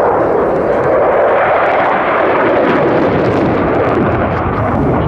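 JAS 39 Gripen fighter's jet engine, loud and steady as the jet flies its display, a broad roar with no clear whine in it.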